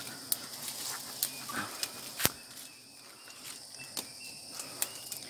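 A steady high drone of forest insects, with several sharp clicks and snaps of twigs and branches being handled. The loudest snap comes a little past two seconds in.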